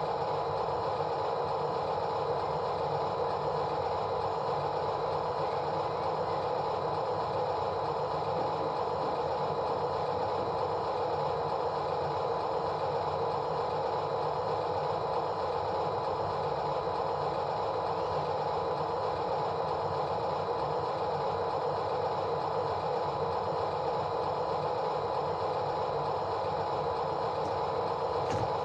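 A steady machine drone, like an engine running, that holds an even level without change.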